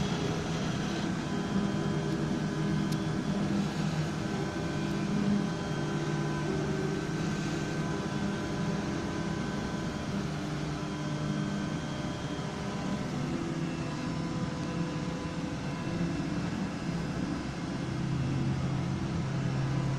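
Large FDM 3D printer running: a steady machine hum with low motor tones that shift and change every few seconds, over a constant whirring background.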